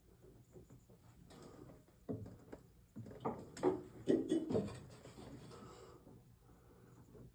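Handling noises from a PEX crimping tool being shifted around a fitting: scattered knocks, clicks and rubbing, densest between about three and five seconds in.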